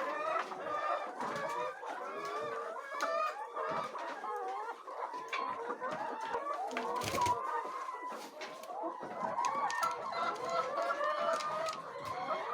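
A flock of laying hens clucking and calling, many birds overlapping continuously, with one brief knock about seven seconds in.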